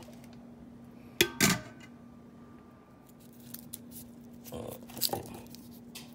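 Kitchen handling noises: two sharp knocks a little over a second in, then a few softer clicks and knocks, over a faint steady hum.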